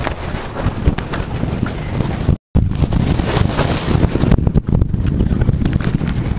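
Wind buffeting the microphone over the wash of the sea against a rocky shore. The sound cuts out completely for an instant about two and a half seconds in.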